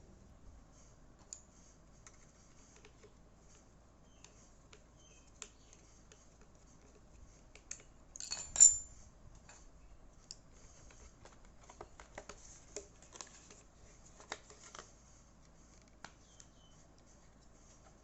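Small clicks and taps of hard plastic and metal parts being handled, with one louder clatter about eight and a half seconds in.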